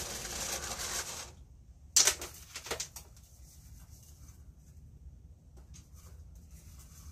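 Used bonsai soil pouring from a scoop into a bonsai pot, a gritty hiss for about the first second. About two seconds in comes a sharp knock, the loudest sound, then a few small clicks, and faint scraping ticks afterwards.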